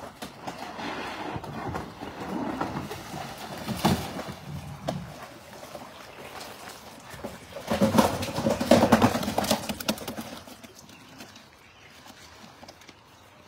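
Live carp flopping and slapping inside a black plastic tub as it is loaded and handled, with knocks and clatter of the tub; a sharp knock about four seconds in, and the busiest, loudest stretch of thrashing and clatter between about eight and ten seconds in.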